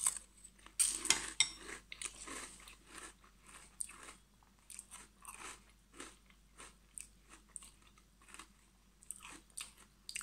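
Chewing a mouthful of dry Kalaspuffar puffed cereal with yoghurt. Crisp crunches are loudest in the first second or so, then give way to softer chews about two or three times a second that fade away.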